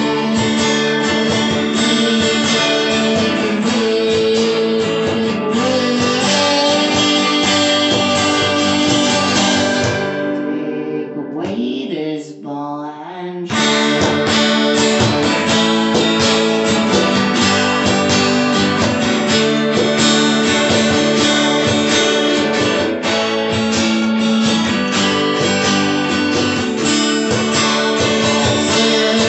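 Live acoustic band: two acoustic guitars strummed with a hand drum. About ten seconds in, the playing drops back to a few ringing notes for about three seconds, then the full band comes back in.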